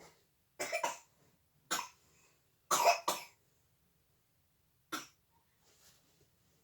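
A child coughing: about five short coughs over four seconds, two of them close together about three seconds in.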